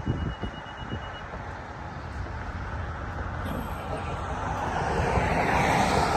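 A car driving past on the road, its tyre and engine noise swelling toward the end. In the first second there are a few low knocks and a short, steady high-pitched beep.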